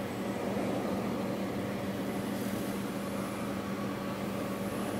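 360 kW silent diesel generator set running steadily: a constant engine hum with a strong low tone that does not change.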